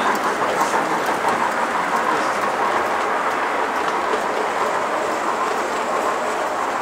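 Model railway train, a locomotive hauling a rake of coaches, running past on the layout's track: a steady rolling rumble of wheels on rail that eases slowly as the train moves away.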